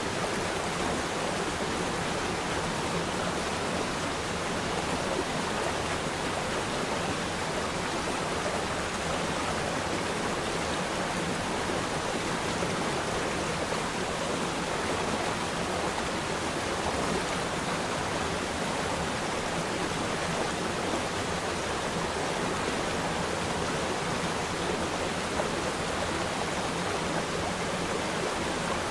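Waterfall: falling water making a steady, even rushing noise with no change in level.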